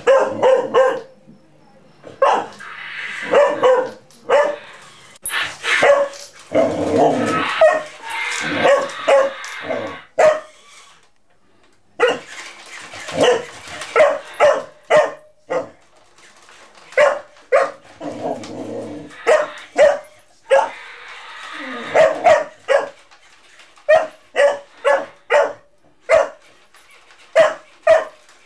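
Golden retriever puppy play-barking repeatedly in short, sharp runs of several barks. Between the runs there are a few longer stretches of rougher sound.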